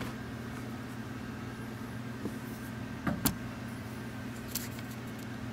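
Small handling clicks and knocks from taking apart a Commodore 128's plastic case as its ground wire is undone, with one sharp click a little past halfway. A steady low hum runs underneath.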